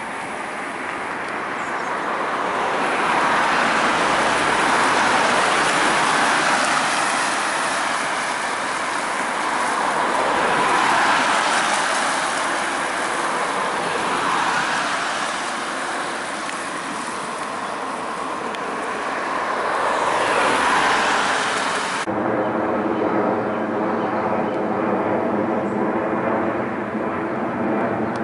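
Road vehicles passing, a rushing noise that swells and fades several times. After a sudden cut about 22 seconds in, a car engine runs with a steady note.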